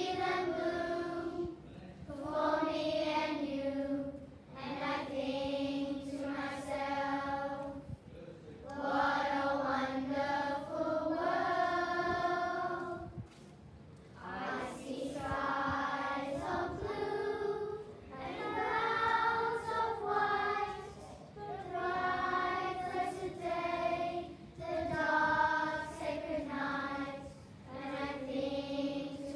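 A children's choir singing together in long held notes, phrase after phrase, with short breaks for breath between phrases.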